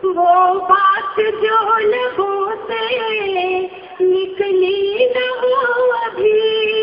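Women singing a tarana, a devotional nazm, in long held, gliding phrases, with a short break between phrases about three and a half seconds in.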